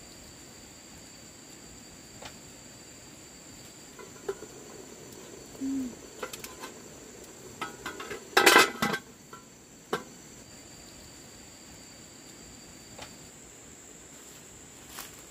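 Insects trilling steadily on two high, unbroken notes, with a brief run of knocks and clatter in the middle, the loudest a quick burst of several hard knocks about eight and a half seconds in.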